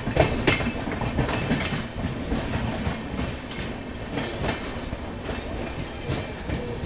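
Rajdhani Express coaches running through a station yard, heard from the side of the moving train: a steady rumble of steel wheels on rail, with scattered clacks as the wheels cross rail joints and points.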